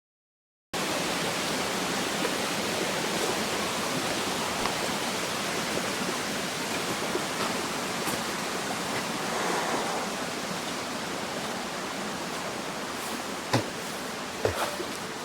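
Waterfall rushing: a steady, even wash of falling water that cuts in abruptly after a moment of silence, with two sharp clicks near the end.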